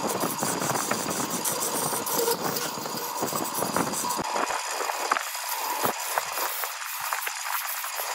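Woodworking power tool running with a steady rumble and rattle. About four seconds in the rumble drops away, leaving scraping with scattered clicks and taps.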